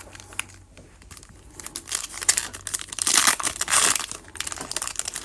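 Foil wrapper of a 2021 Panini Prizm baseball card pack being torn open and crinkled by hand. The crackling starts about a second and a half in and is loudest around three to four seconds in.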